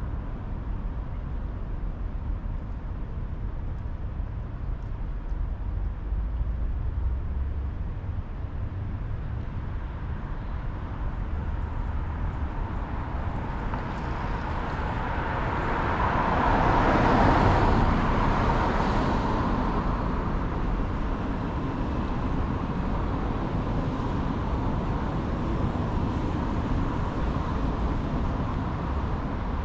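Steady street traffic rumble, with one vehicle passing by that swells up to its loudest about halfway through and then fades away.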